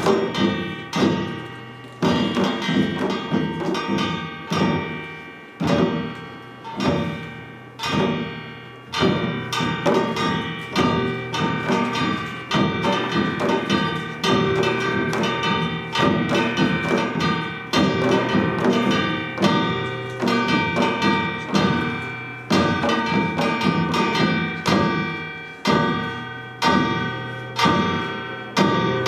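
Korean samul nori percussion playing a Yeongnam-style rhythm: hourglass janggu and barrel buk drums struck in repeated patterns, about one to two strokes a second, in swelling and fading phrases, with metal gongs ringing steadily beneath the drum strokes.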